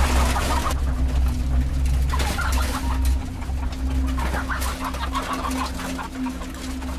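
Many caged laying hens clucking and calling in short scattered calls, over a steady low hum.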